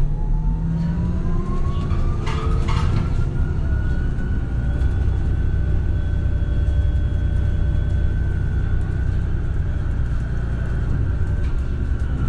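MAN Lion's City Hybrid city bus under way: its electric drive gives a whine that climbs in the first two seconds, holds at one steady pitch and sinks a little near the end, over a low rumble. A few knocks or rattles come about two to three seconds in.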